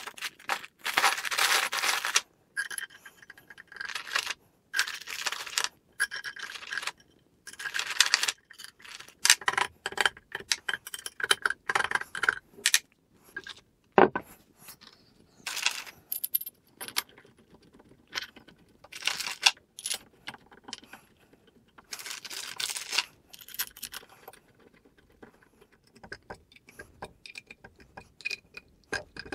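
Steel screws jingling and clinking in and out of plastic bags, with the bags crinkling, and aluminium parts being handled and scraped while they are screwed together. A single sharp metal click about halfway through.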